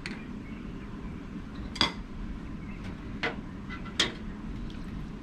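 A metal utensil clinking against a cooking pot a few times while foam is skimmed off simmering soup stock, with two sharp clinks loudest, about two seconds apart, over a steady low background noise.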